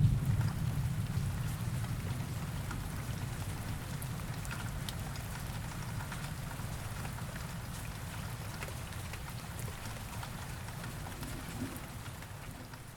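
Steady rain falling, an even hiss with scattered drop ticks. A low thunder rumble dies away in the first second or two.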